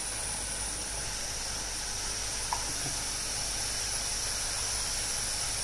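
Thick onion-tomato masala cooking in an aluminium pressure-cooker pan on the stove, giving a steady low hiss, with one faint click about halfway through.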